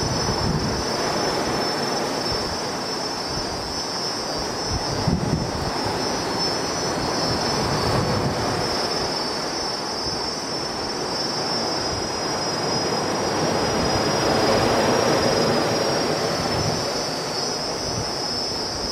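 Steady outdoor ambience of surf and sea breeze, swelling and easing slowly, under a continuous high-pitched insect drone.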